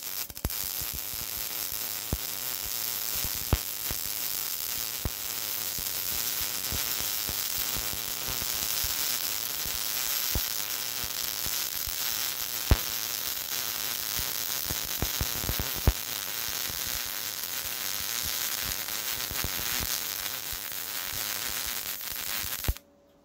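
MIG welding arc from a Yeswelder Mig-205DS set at 140 amps and 19.1 volts with 75/25 argon-CO2 gas, laying a bead on quarter-inch steel plate: a steady crackling sizzle with occasional sharp pops of spatter. It cuts off suddenly near the end as the trigger is released.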